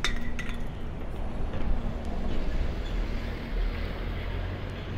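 Street traffic noise with the steady low hum of a double-decker bus engine running close by. A few sharp clicks come right at the start.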